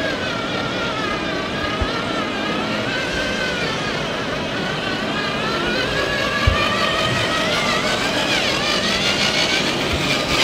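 Electric motors of radio-controlled model machines whining, several at once, their pitch rising and falling as they speed up and slow down, with a steady low hum and a few faint knocks.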